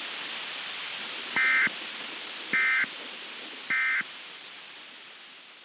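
Three short bursts of Emergency Alert System end-of-message data tones (the SAME 'NNNN' signal), about a second apart, signalling the end of the alert. They sit over a steady static hiss that fades away near the end.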